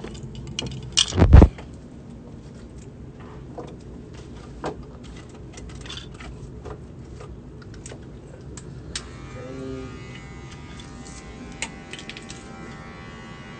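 Electric hair clippers buzzing steadily, with a single loud thump about a second in and scattered small clicks; a higher whine joins about two-thirds of the way through.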